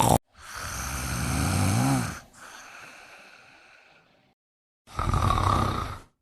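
Snoring sound effects spliced together with dead silence between them: a short blip, a snore of about two seconds trailing off into a fainter breath, then after a gap another snore of about a second that cuts off abruptly.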